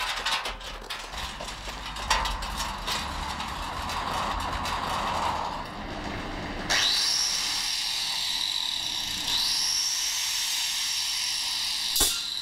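Clattering and rattling of metal tools and workshop mechanisms, then a sudden steady hiss with a high whine that glides up and levels off, heard twice.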